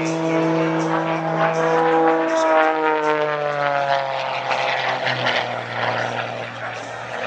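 Single-engine aerobatic propeller plane flying past. Its engine-and-propeller note drops in pitch about three to five seconds in as it goes by, then holds steady at the lower pitch.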